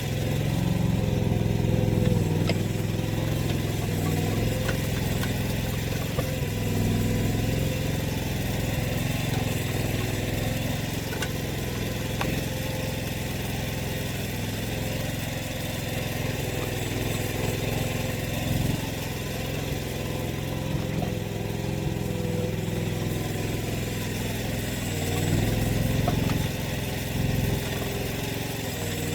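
AGT mini excavator engine running steadily for the whole stretch, with small rises and dips in loudness and a few faint clicks.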